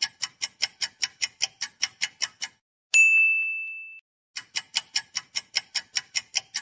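Rapid run of sharp ticks, about five or six a second, that stops for a single bright bell ding ringing out for about a second, then starts ticking again. The tick-and-ding effect of a random picker cycling and landing on a choice.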